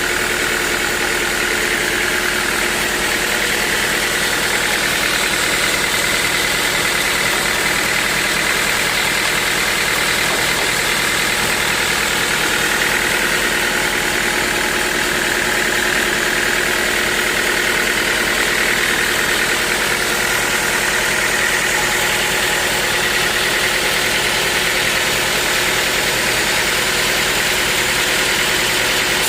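Sawmill machinery running steadily: a continuous, loud engine-like drone with a high, slightly wavering whine.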